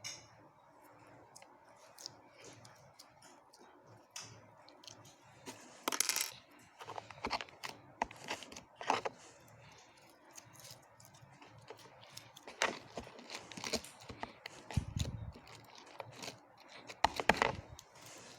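Clear homemade slime being handled: irregular bursts of sticky clicks and crackly squelches, with a couple of low thuds near the end.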